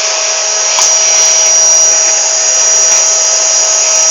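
Vacuum cleaner running steadily and loudly close by: an even rushing noise with a constant high motor whine.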